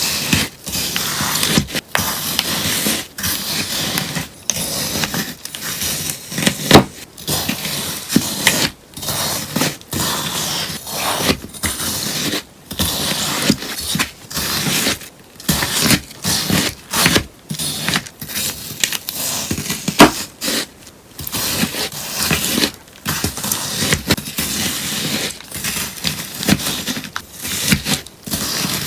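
Sponge being cut over and over close to the microphone, each cut a crisp, crunchy shearing sound, with short pauses between strokes. Two cuts stand out as sharp, loud snaps, one about seven seconds in and another around twenty seconds.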